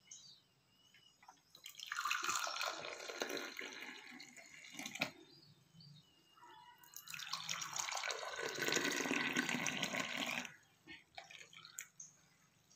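Hot milky drink poured from a steel vessel into two ceramic mugs, one after the other: two splashing pours of about three seconds each, with a short pause between.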